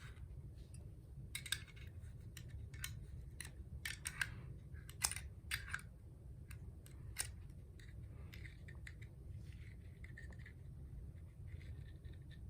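Faint, sharp metallic clicks and scrapes, a dozen or so in the first half, from a small metal tool picking at the inside of a Zippo lighter insert to pull out its cotton wadding.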